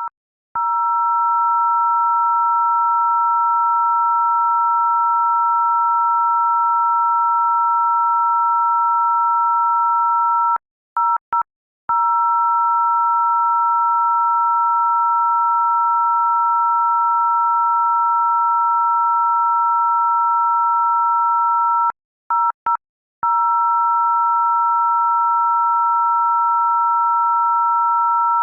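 A loud, steady electronic tone made of two pure pitches sounding together, just above 1 kHz, like a telephone dial tone. It stutters with brief dropouts twice, about 11 and 22 seconds in, then carries on unchanged.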